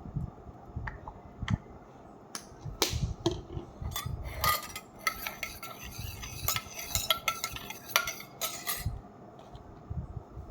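A spoon clinking and scraping against a bowl as a mixture is stirred: scattered clinks at first, then a fast, dense run of clinks through the second half.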